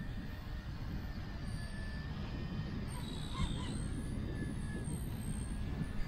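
Strong wind buffeting the microphone, with the faint, wavering high whine of a distant XK K110 micro RC helicopter's brushless motor and rotors in flight.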